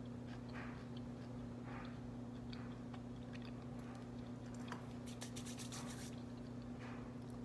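Someone chewing a mouthful of toasted grilled cheese sandwich, faint crunches of the crisp bread coming about once a second, with a quick run of crackles about five seconds in. A steady low hum runs underneath.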